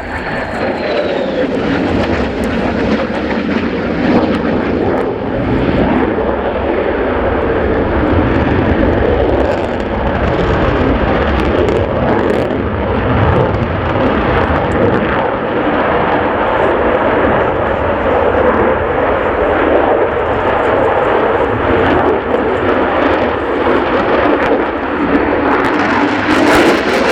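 Lockheed Martin F-35B Lightning II jet fighter's single F135 afterburning turbofan at high power during a tight display turn, loud and steady throughout, with a falling whine in the first second or so.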